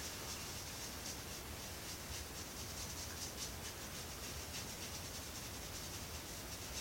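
Razor blade scraping through beard stubble in short, repeated strokes: a faint scratchy rasp.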